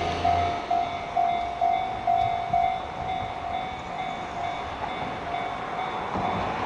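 Japanese level-crossing warning bell ringing in a steady ding-ding rhythm, about two strikes a second, fainter after a few seconds. A passing Keihan 600 series train's low rumble dies away about half a second in.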